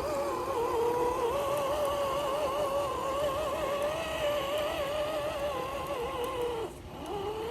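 Small electric motor of an RC off-road crawler whining under load, its pitch wobbling as it strains. It drops out briefly near the end, then picks up again.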